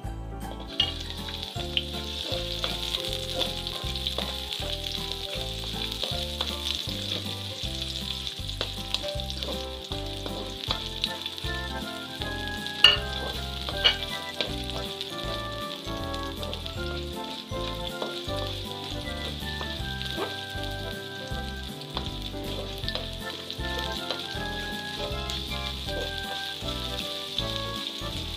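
Chopped onions sizzling as they fry in hot oil in a wok, with a steady hiss. Two sharp knocks a second apart near the middle, the spatula striking the wok as the onions are stirred.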